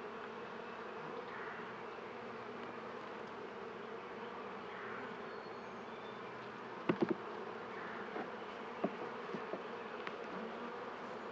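Steady hum of honeybees from an open Langstroth hive, a calm colony not bothered by the inspection. A few light knocks sound about seven seconds in, with softer ones after.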